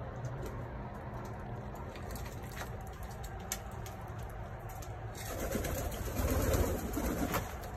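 Domestic pigeons cooing in a loft. From about five seconds in, a pigeon's wings flap loudly as it flies across, the loudest sound here.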